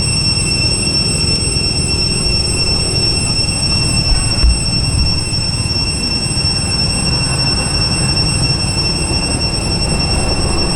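Steady, high-pitched drone of cicadas holding one pitch, over a low rumble, with a couple of brief low bumps about four seconds in.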